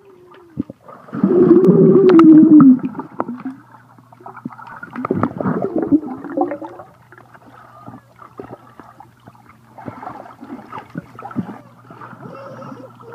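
Underwater sound in a swimming pool, picked up by a phone in a waterproof case: muffled bubbling, gurgling and splashing over a steady low hum. The loudest part is a long wavering, bubbly burst between about one and three seconds in.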